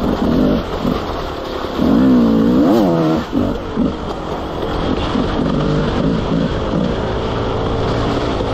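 Enduro dirt bike engine heard on board, worked on and off the throttle along a trail, with a rev that rises and falls about two seconds in, then running more steadily.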